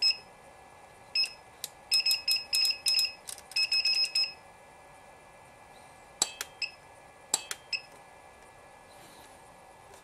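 Orlit Rovelight RT 400 strobe's control panel beeping as its buttons are pressed to step the power setting: a rapid string of short electronic beeps, each with a click, followed a few seconds later by a handful of sharper button clicks with brief beeps.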